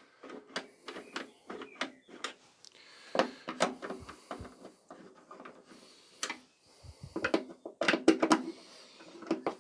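Bolts on a cylinder mower's side inspection cover being done up with a screwdriver: a string of irregular clicks, taps and short scrapes of the tool on the fittings.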